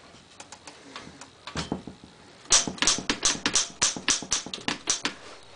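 An unrestored 1912 Oliver No. 9 typewriter being typed on. A few light clicks come first, then about two and a half seconds in a quick run of loud key strikes, about five a second.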